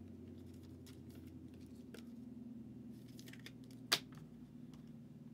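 Trading cards being handled: faint light clicks and rustles as cards are flipped through, with one sharp tap about four seconds in, over a steady low hum.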